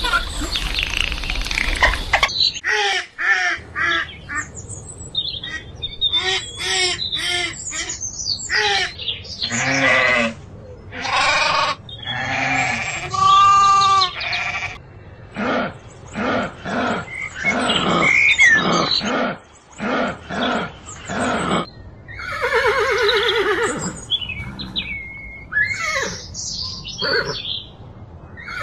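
Sheep and goats bleating, many short calls one after another, some overlapping.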